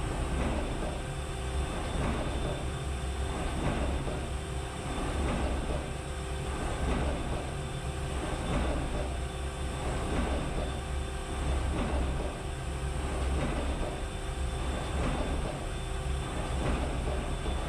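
Mazak Integrex mill-turn machine shaping (broaching) an anvil's square hardy hole: the cutting tool strokes in and out over and over, about one stroke a second, over the machine's steady hum.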